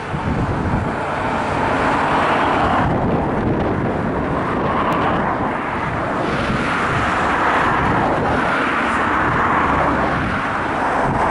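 Loram rail grinder train's engines running steadily, an even rushing hum with a low rumble beneath.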